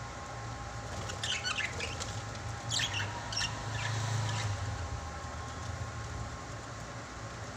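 A small pet bird chirping in two quick bursts, about a second in and again around three seconds in, over a steady low hum.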